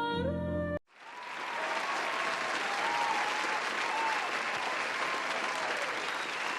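A music chord that is cut off abruptly under a second in, then a large crowd applauding, swelling in within a second and holding steady, with faint voices calling over the clapping.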